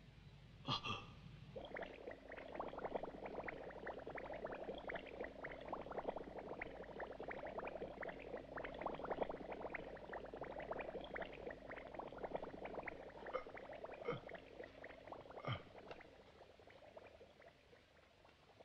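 Water bubbling steadily through a glass oxygen humidifier bottle at a hospital bedside, a dense fine crackle of small bubbles over a low steady hum; it fades away near the end.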